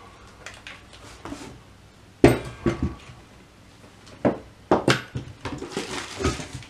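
Knocks and thuds of a corded circular saw and its cardboard box being handled while unpacking: one sharp knock about two seconds in is the loudest, followed by several lighter knocks.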